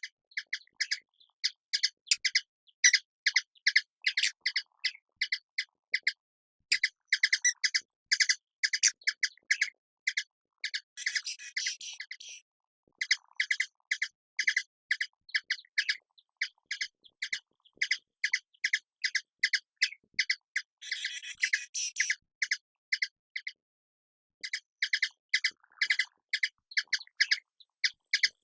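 Hummingbird calling: a long series of sharp, high chips, about three to four a second, broken by two short bursts of rapid twittering chatter and a couple of brief pauses.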